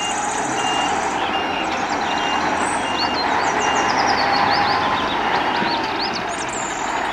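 Heavy three-axle diesel dump truck running as it manoeuvres on a dirt track. A reversing alarm beeps about twice a second and stops about four seconds in.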